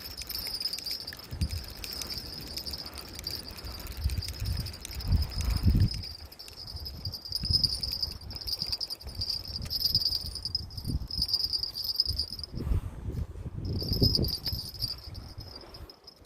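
Night insects trilling in a steady, high, pulsing buzz that drops out briefly a few times near the end, over irregular low rumbling thumps.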